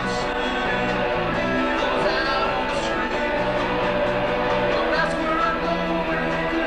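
A rock band playing live, with guitar prominent in a steady, dense mix.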